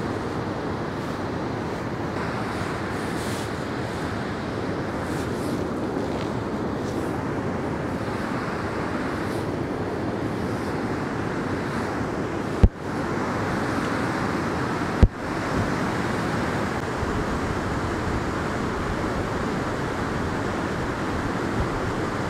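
Niagara River rapids rushing steadily, a dense even wash of white water. Two sharp clicks come a couple of seconds apart about halfway through.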